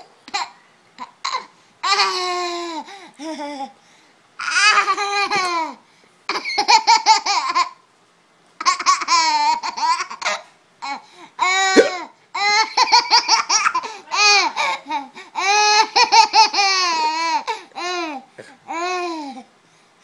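A baby laughing hard in about seven bouts of high-pitched giggles with short pauses between them. Each bout is a quick run of laughs that falls in pitch.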